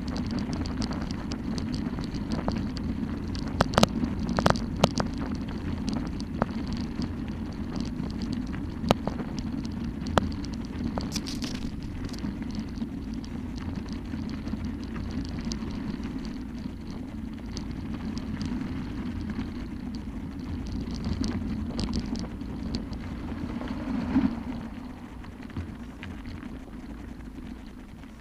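Bicycle rolling over a gravel road: a steady rumble from the tyres and wind on the microphone, with scattered sharp rattles and clicks over bumps. The rumble eases near the end.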